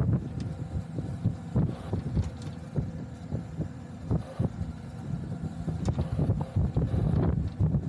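Wind buffeting the microphone: a low rumble that swells and drops in irregular gusts, with sudden short hits.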